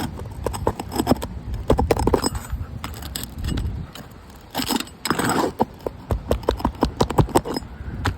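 Hand tool clicking, tapping and scraping against roof shingles in quick irregular runs, with a couple of longer scrapes, as nails under a shingle are worked loose.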